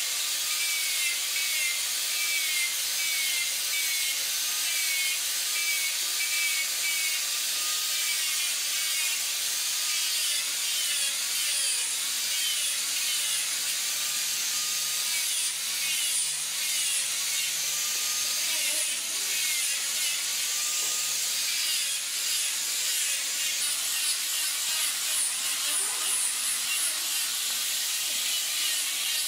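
Small corded angle grinder with a sanding disc running steadily against the curved wooden face of a stair volute, a high whine with a scraping hiss, its pitch wavering up and down with each pass over the wood.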